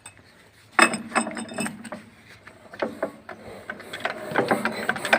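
Fitter diesel engine being turned over slowly by hand: a run of irregular mechanical clicks and ticks from the engine and its fuel pump. It starts about a second in and gets louder and busier toward the end. The engine is being turned to check that fuel now flows through the pump after its air was bled out.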